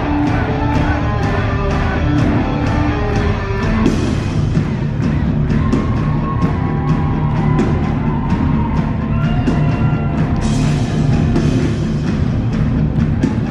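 Live band music driven by a drum kit played hard: a steady run of drum hits from about four seconds in, with a cymbal crash washing over the band about ten seconds in.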